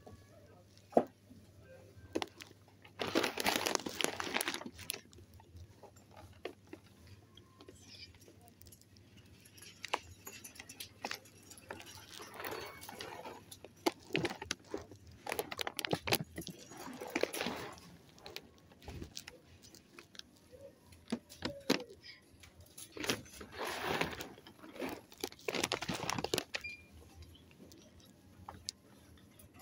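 Foil coffee bag crinkling as a hand squeezes and turns it, in several bursts of crackling with quieter gaps and small clicks between.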